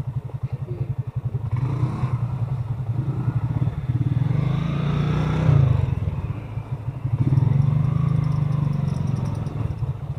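Small motorcycle engine running while riding, a fast-pulsing low drone, with a rise in pitch around the middle.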